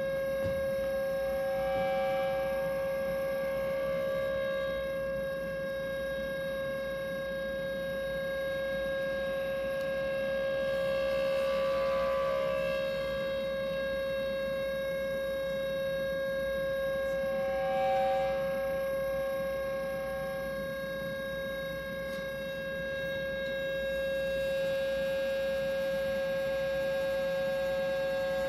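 Sustained electronic drone from a live improvised electronic setup: one steady pitch with a ladder of overtones. Higher tones swell in and fade out over it, most clearly about two seconds in and again about eighteen seconds in.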